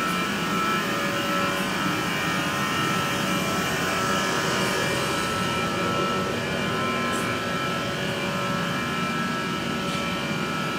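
A steady mechanical hum made of several held tones that neither rises nor falls, like a machine running at constant speed.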